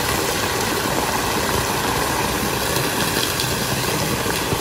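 Steady rush and splash of a water jet pouring from the rocks into a hot spring pool.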